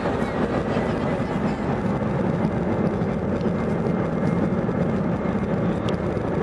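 Jet airliner engines running, a steady loud noise.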